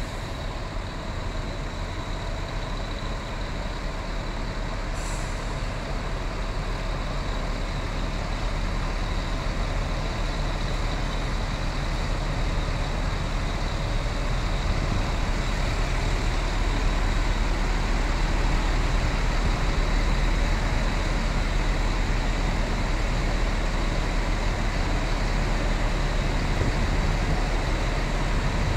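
Mercedes-Benz OH 1626 coach's rear-mounted diesel engine idling with a steady low drone, growing louder as it is approached from behind. A brief hiss about five seconds in.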